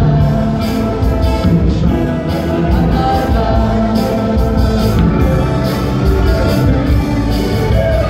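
Live rock band playing through a PA: a man singing into a microphone over electric guitar and a drum kit keeping a steady beat with cymbal hits.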